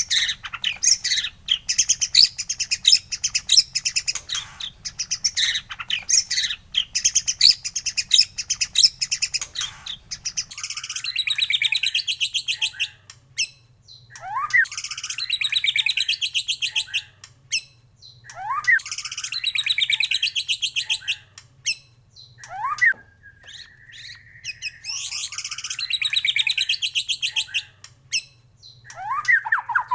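White-rumped shama (murai batu) singing. For about the first ten seconds it gives a fast run of short, sharp chirps. After that come loud repeated song phrases, each opening with a rising whistle and breaking into a rapid trill, about every four seconds with short pauses between them.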